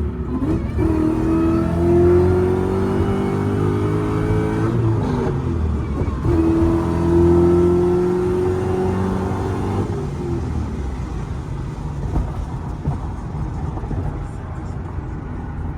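2003 Mustang SVT Cobra's supercharged 4.6-litre V8 accelerating hard: the engine note rises through one gear, breaks at a shift about five seconds in, and rises again through the next gear, then settles to a steadier lower note from about ten seconds on.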